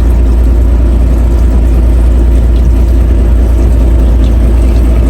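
Fishing boat's engine running steadily at idle, a loud, even low drone.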